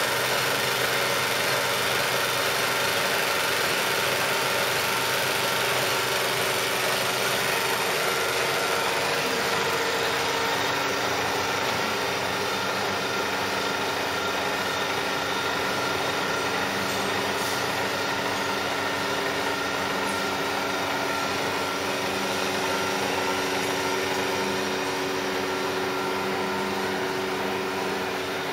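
Butler Elgamill CSN10 bed-type milling machine running a looped CNC program, its 15 hp spindle turning and its axes traversing. A steady machine hum made of several held tones, whose pitch pattern shifts a few times as the moves change.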